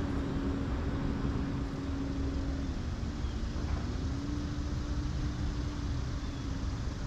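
Electric trolling motor running with a steady hum that dips in pitch about three seconds in and climbs back a second later, over a low rumble.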